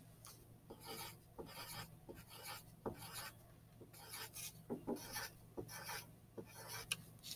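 Pencil on paper, drawing small circles in a run of short, quick strokes: a faint, repeated scratching.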